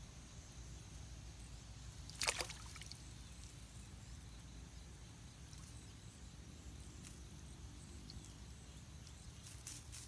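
A short splash in shallow water about two seconds in, over a faint steady low hum and thin, steady high-pitched tones.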